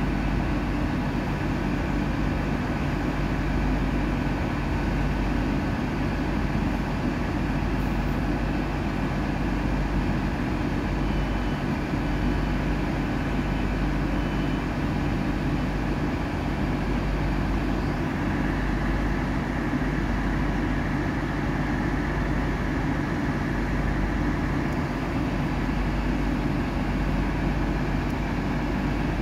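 Diesel engines of trains at the platform, a standing Intercity Express and a slowly approaching Class 158 unit, running steadily at low revs. The result is an even, unchanging low hum with a deep drone beneath.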